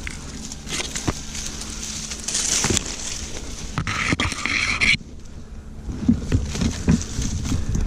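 Handling noise of a man climbing a tree trunk: hands and body rubbing and scraping on bark and brushing through leaves and twigs, with scattered knocks. A dense rustling noise builds in the middle and cuts off abruptly about five seconds in, followed by a few low thumps.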